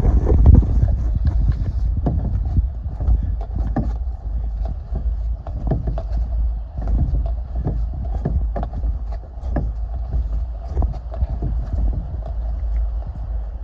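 Canoe being paddled in wind: a steady low rumble of wind on the microphone, with irregular knocks that sound like paddle strokes against the hull.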